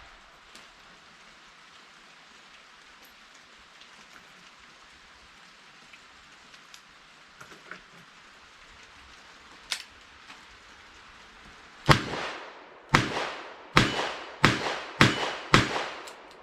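A steady hiss of heavy rain with a few faint clicks. About twelve seconds in, a Smith & Wesson Model 64 revolver fires .38 Special lead round-nose reloads: a string of about seven sharp shots, roughly one a second at first and then quicker, each with a short ring.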